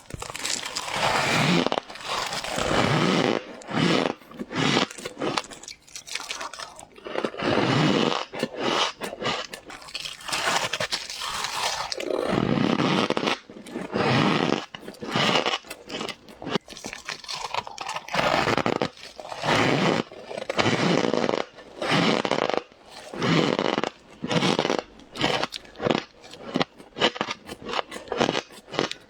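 Ice being bitten into and crunched up close, a burst of crackling, squeaky crunching every second or two.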